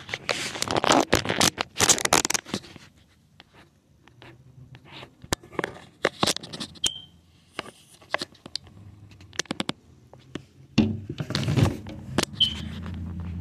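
Scratching, scraping and clicking handling noise from the recording device as it is held and moved, thickest in the first couple of seconds. Two brief high chirps come about halfway through and near the end, and a low steady hum starts about three-quarters of the way through.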